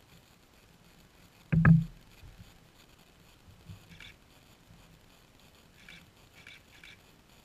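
A loud, short, low thump about a second and a half in. Faint short high squeaks from three-week-old chocolate Labrador puppies nursing on their mother, once about four seconds in and a few times near the end.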